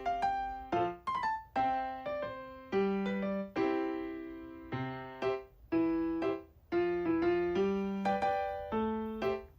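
Piano music: notes and chords struck one after another, each starting sharply and fading away.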